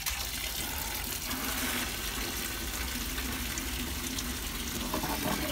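Condensate from a wood gasifier's hopper pouring steadily out of a just-opened drain valve into a plastic bucket. This is the daily draining of condensed moisture from the woodgas system.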